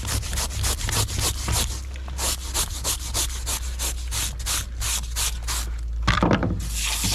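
Steel-bristled brush scrubbing along a salmon's skin in quick back-and-forth strokes, about four or five a second, rasping off the scales and slime.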